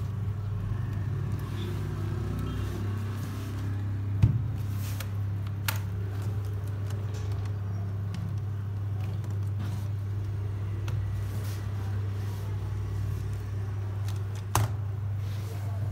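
A steady low hum runs under a few sharp clicks and knocks from a Dell Latitude D620 laptop's plastic case and keyboard being handled. The loudest click comes about four seconds in, a fainter one a second or so later, and another near the end.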